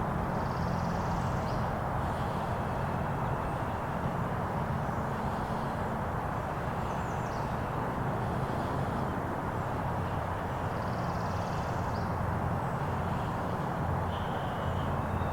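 Steady outdoor background noise with a low hum underneath, and faint bird calls now and then.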